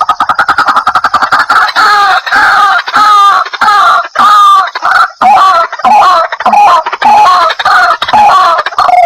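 White-breasted waterhen calling: a fast stuttering run of harsh notes that settles into a steady series of repeated calls, about two a second.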